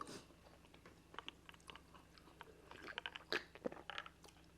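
Faint mouth sounds of a person chewing food: soft wet smacks and clicks, scattered and coming thickest about three to four seconds in.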